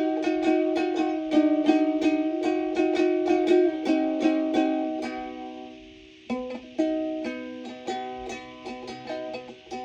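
Plucked string instrument playing a quick melody of picked, ringing notes. The playing fades away about six seconds in, then starts again with a new phrase.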